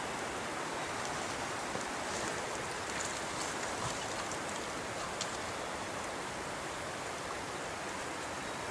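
Steady, even outdoor hiss with a few faint ticks.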